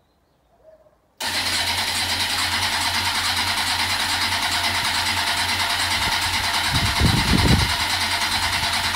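2007 Kawasaki ZX-10R inline-four engine turning over on its electric starter for about eight seconds without catching, briefly deeper and louder about six seconds in. The no-start is put down to fuel not reaching the engine: the fuel pump swapped in from a Mazda RX-8 has not cured it.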